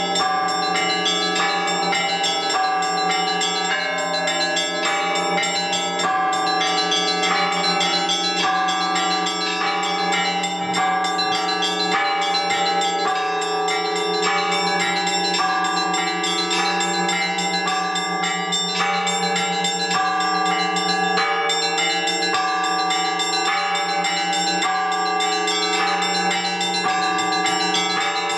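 Russian Orthodox church bells in a continuous peal: small bells struck in a quick repeating pattern, about once a second, over the held ringing of the larger bells.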